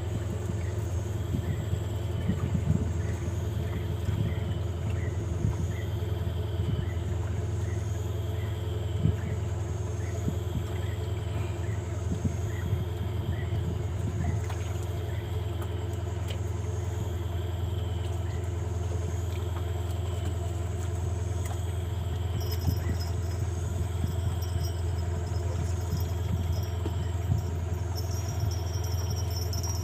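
A steady low rumble under rhythmic animal chirping: short chirps about twice a second, with higher calls repeating about every second and a half.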